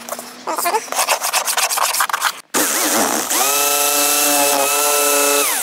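Scratchy rubbing for about two and a half seconds, then a corded jigsaw cutting corflute plastic sheet: its motor comes up to speed and runs with a steady whining hum over the rasp of the blade.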